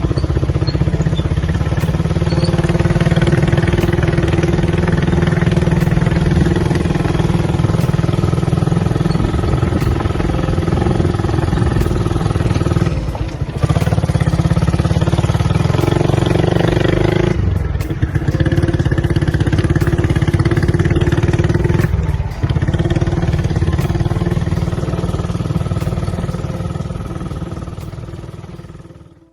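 Motorcycle engine running steadily while being ridden, with a few brief dips in the engine sound, fading out at the end.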